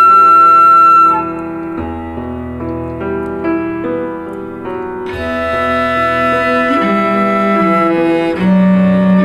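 A piano, cello and flute trio playing live. The flute holds a long high note that stops about a second in, then piano and cello go on more quietly, and the music grows fuller and louder again about five seconds in.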